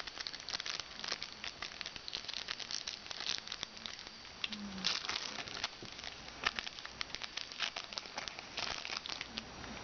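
Trading-card pack wrapper crinkling as it is handled and opened, a dense run of irregular crackles.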